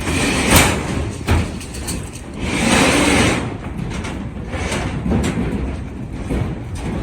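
Construction-site work noise: a sharp knock about half a second in, another about a second later, and a scraping rush lasting about a second near the middle, over a steady rumble.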